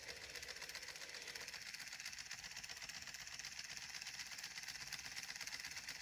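3D-printed pulse motor running, its bar-magnet rotor spinning past the coils as a Hall-sensor circuit pulses them, giving a faint, rapid, steady pulsing.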